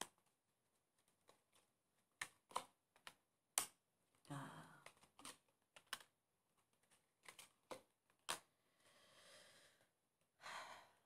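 Tarot cards being handled on a table: scattered light clicks and taps, with a few short sliding rustles, all quiet.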